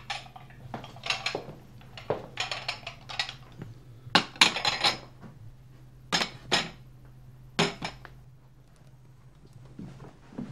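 White porcelain cups, saucers and metal teaspoons clinking as tea things are handled and set on a tray, in short bursts of clinks that are loudest about halfway through and die away near the end. A faint steady hum runs beneath.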